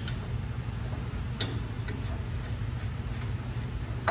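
Light metallic clicks of a brake caliper and its mounting bolts being handled and fitted, two sharp ticks about a second and a half in and at the end, over a steady low hum.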